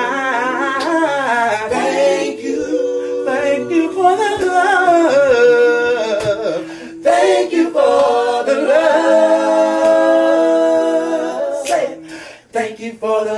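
A small group of voices singing a gospel worship song a cappella, with long held notes and a brief pause about six and a half seconds in.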